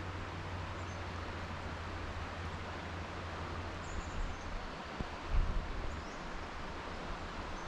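Steady rush of river water flowing around the raft, with a few faint high bird chirps about four seconds in and a low bump a little after five seconds.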